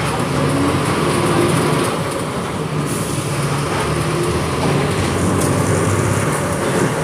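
Diesel engine of a Volkswagen 17.230 EOD city bus running steadily, with small shifts in its pitch.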